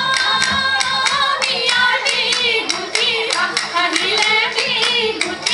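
Group of women singing a Jeng Bihu folk song, with steady rhythmic hand clapping at about two to three claps a second.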